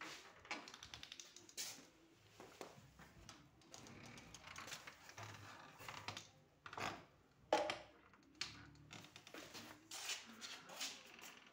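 Irregular light clicks and taps, with a sharper knock about seven and a half seconds in.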